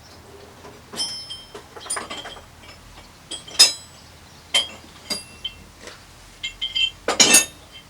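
Metal hand tools, a punch or chisel and hammer, clinking and clattering as they are picked up and handled: a series of sharp clinks, some with a short high ring, and a louder clatter near the end.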